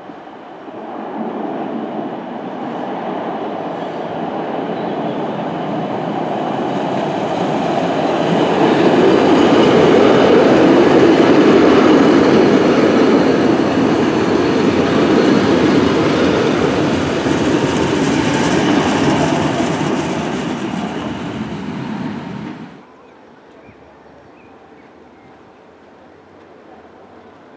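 Waldenburgerbahn narrow-gauge electric railcar running along the platform close by, its wheels on the rails growing louder over about ten seconds and staying loud. The sound cuts off abruptly about three-quarters of the way through, leaving only faint background noise.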